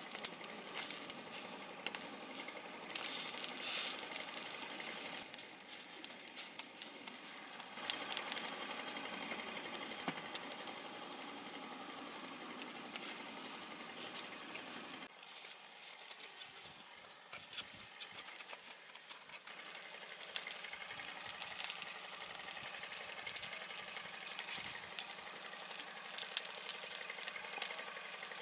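Food sizzling as it cooks: a steady hiss with many small crackles and spits. The sound changes abruptly about halfway through, then carries on much the same.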